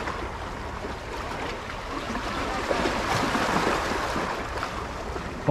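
Steady rushing of wind over the microphone with water lapping below, an even noise with a low rumble and no distinct events.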